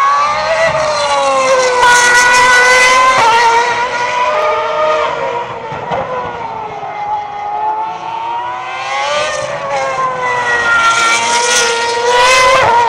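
Formula One car's 2.4-litre V8 engine at high revs. The pitch climbs as the car accelerates and drops sharply at each gear change, loudest about two seconds in and again near the end.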